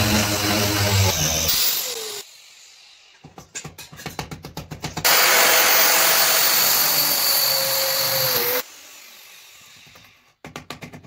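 Angle grinder fitted with a diamond core bit boring into a concrete step: it runs loudly, then winds down about two seconds in. A rapid rattle follows, then a second loud run with a high whine that cuts off suddenly after about three and a half seconds.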